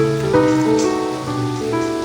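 Gentle instrumental music with sustained notes changing every half second or so, over a steady patter of rain.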